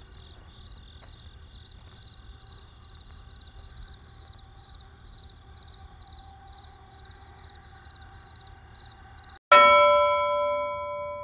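Faint cricket chirping over low hiss, the stock awkward-silence gag. About nine seconds in, a loud bell chime strikes and slowly rings out.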